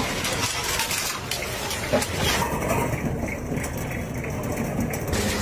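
An engine running steadily under a noisy outdoor haze, with a couple of sharp knocks or clatters about a second and two seconds in.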